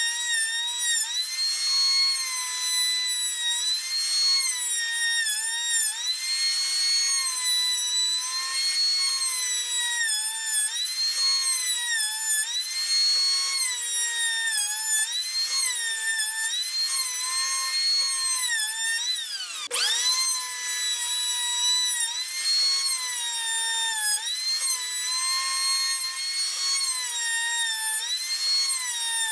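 WEN 6534 8-amp electric hand planer running with a high whine, its pitch sagging and recovering about every two seconds as the blades bite into the board on each pass. About two-thirds through, the motor slows sharply and then spins back up.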